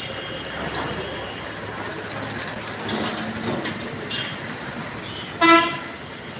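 Street traffic noise with one short, loud horn honk about five seconds in.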